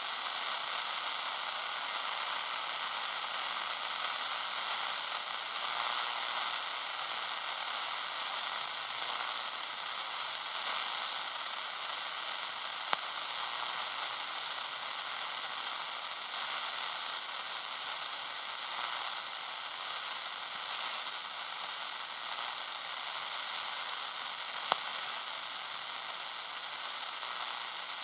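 Shortwave receiver hissing with steady static while it is tuned upward across the 14 MHz band, no station coming through. Two short sharp clicks, one about halfway and one near the end.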